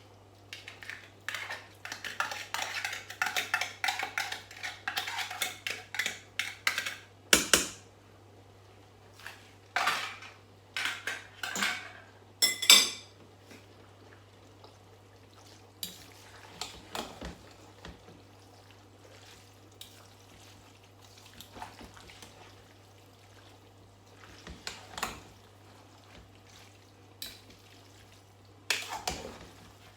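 Metal cooking utensils clinking and scraping against pots and pans: busy runs of quick scrapes and taps for the first several seconds, two loud ringing clangs before halfway, then only occasional knocks.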